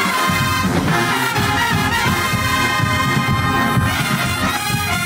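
A show-style marching band playing, its trumpets and other brass loud and sustained over a driving drum beat.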